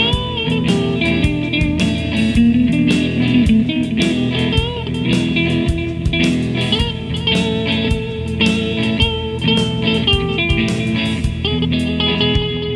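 Blues-style music led by guitar, with notes that bend and slide, over a steady drum beat.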